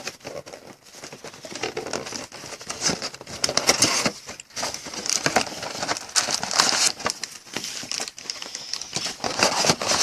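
Plastic shrink-wrap crinkling and tearing as it is pulled off a sealed box of trading cards, in irregular crackling spurts.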